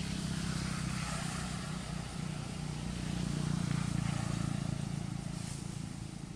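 Steady low engine drone that swells to its loudest about three and a half seconds in and then slowly fades, like a motor passing by.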